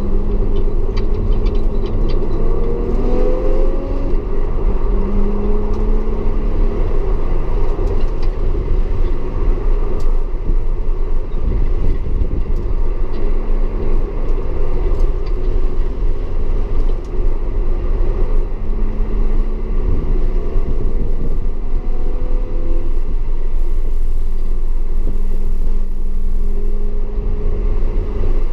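Audi S4 engine running hard at track speed, its pitch climbing and dropping several times as it revs through the gears, over a heavy, continuous low rumble of road noise.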